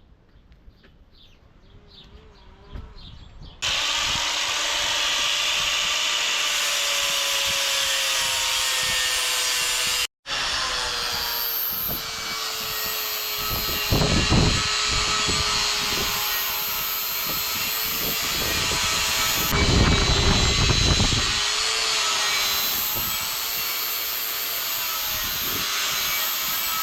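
Angle grinder cutting steel, starting a few seconds in and running with a steady high whine that dips as the wheel is loaded. The sound drops out briefly near the middle, and there are heavier bouts of grinding twice later on.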